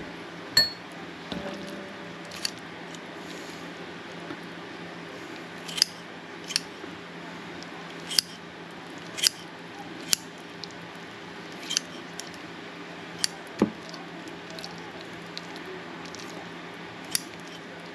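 Kitchen shears snipping through raw lobster tail meat: a dozen or so sharp clicks of the blades closing at irregular intervals, with one duller knock about two-thirds through, over a steady low hum.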